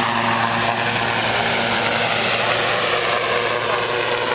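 Aircraft engine drone from low overhead, steady and loud, its pitch falling slightly as it passes.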